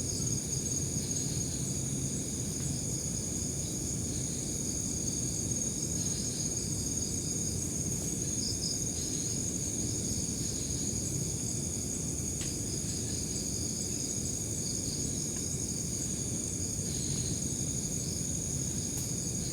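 Crickets and other night insects chirping without pause: a constant high-pitched trill with pulsing chirps just below it, over a low steady rumble. There is one faint click about twelve seconds in.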